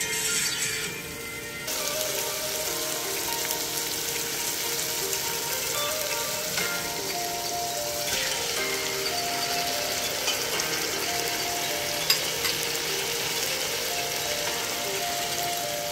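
Beef cubes and onions frying in hot oil in a pot: a steady sizzle that comes in about two seconds in, with soft background music underneath.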